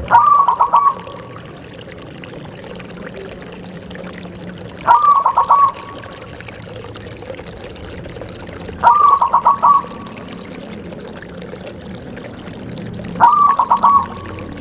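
Zebra dove (perkutut) cooing: four short phrases, each a quick run of staccato notes, about four seconds apart.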